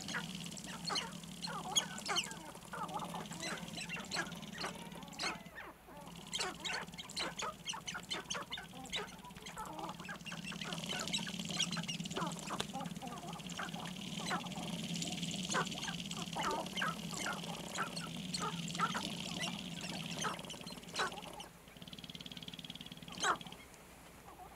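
Sharp-tailed grouse on a lek: a dense chorus of rapid clucks, cackles and short calls from several displaying birds, over a steady low hum. The chorus breaks off briefly twice.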